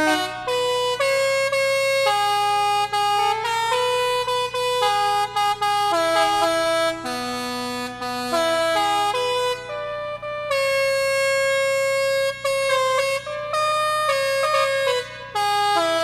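A MIDI-controlled organ of truck, train and ship air horns and steam whistles playing a polka melody in loud, chord-like clusters of horn notes, with brief gaps between phrases.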